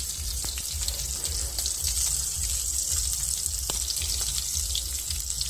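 Hilsa roe sizzling steadily as it fries in hot oil in a non-stick pan, with a few light clicks of a spatula as the pieces are turned over.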